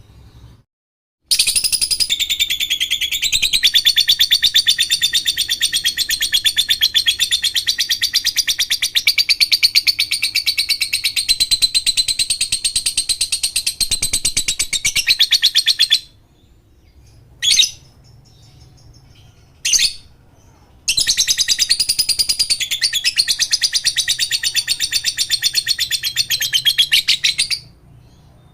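Lovebird ngekek: a long, rapid, unbroken chattering trill of about fifteen seconds, then two short chirps, then a second chattering bout of about seven seconds.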